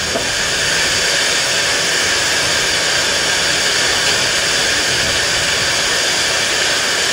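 Steady, loud hiss of steam escaping from a GWR Manor class 4-6-0 steam locomotive, No. 7822 Foxcote Manor, low down by its wheels.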